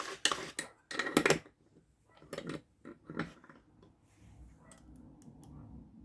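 Tools and small objects being handled on a workbench: several short clattering, rustling bursts in the first few seconds, then a quick run of sharp clicks about five seconds in.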